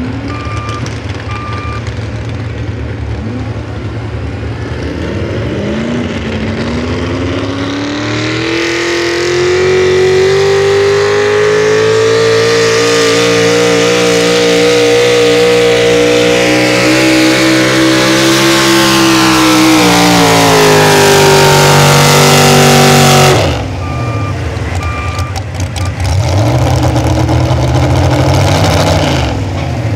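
Super Stock 4x4 pulling truck's engine revving up to full throttle on a pull: its pitch climbs, holds high and loud for about a dozen seconds, sags, then cuts off suddenly about three-quarters of the way in. A backup alarm beeps before the run and again after the engine shuts off, and the engine revs briefly once more near the end.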